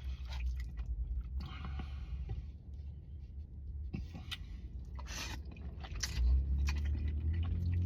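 A man chewing a mouthful of smoked barbecue tips close to the microphone, with short wet clicks of the mouth scattered through.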